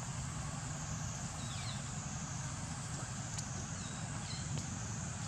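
Steady outdoor background noise: a low rumble under a constant high-pitched hiss, with a few short, high, falling chirps and a couple of faint clicks.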